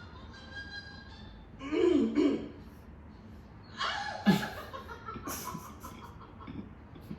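People laughing in two short outbursts, one about two seconds in and a louder one around four seconds, with softer sounds after.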